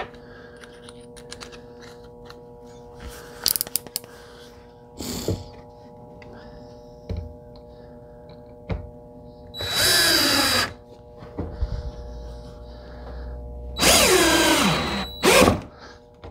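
DeWalt 20V cordless drill driver driving a traditional Phillips-head wood screw into a pre-drilled starter hole in wood, in two runs of about a second each, the motor's pitch falling as the screw bites. Light clicks and knocks of handling the screw and driver come before the first run.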